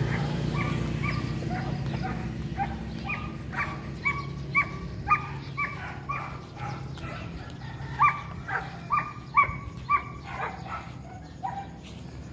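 An animal calling over and over: short, sharp, high-pitched calls, about two a second, with a brief pause around the middle.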